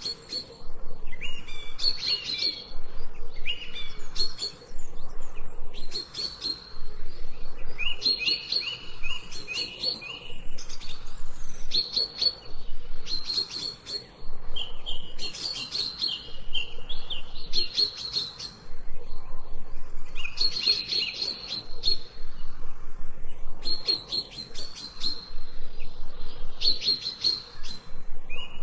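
Songbird chirping in quick bursts of rapid high notes, a phrase every second or two, over a faint steady background hiss.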